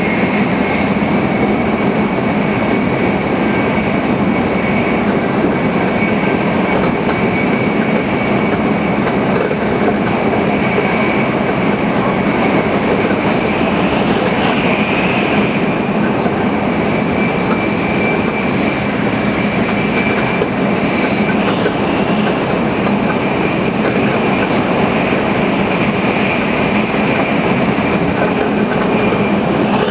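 Tokaido Shinkansen Nozomi bullet train running at high speed: a steady, loud rush of running noise with a thin, steady high-pitched whine.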